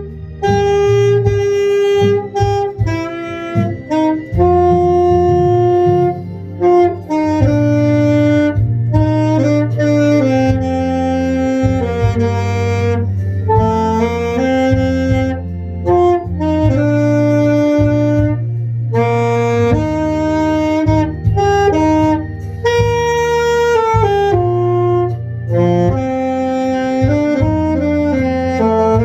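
Instrumental music: a solo wind instrument plays a slow melody of held notes, with brief breaks between phrases, over a backing track with a steady bass line.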